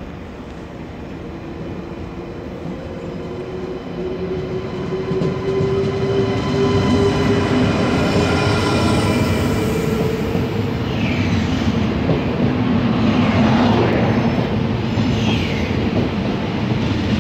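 A double-deck SNCF TGV high-speed train pulls slowly into the platform and passes close by. Its rumble and steady hum grow louder over the first half, and a few short, falling high squeals come from the wheels or brakes in the second half.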